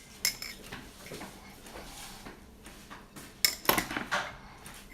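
Kitchen utensils clinking and knocking against dishes: soft scattered clicks, then a quick run of three or four sharper knocks about three and a half seconds in.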